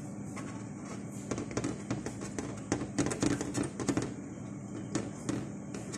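Irregular small clicks and taps of hands working in a plastic bowl close to the microphone, over a faint steady hum.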